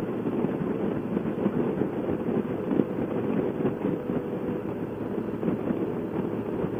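Steady wind rush and motorcycle riding noise picked up by a helmet intercom microphone at road speed, with many small irregular crackles from air buffeting the mic.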